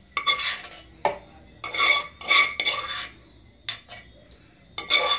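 Metal spoon scraping the inside of an aluminium cooking pot in repeated short strokes, the pot ringing briefly with each, as the last of the boiled Irish moss is scraped out.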